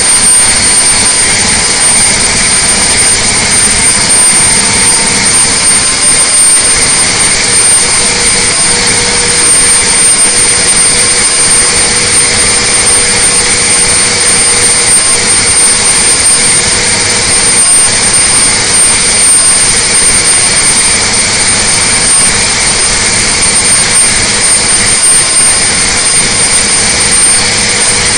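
Detroit Diesel Series 60 inline-six turbo diesel running at full throttle and full load on an engine dynamometer, held steady at about 2,000 rpm and some 600 hp. A loud, even roar with a steady high whine over it.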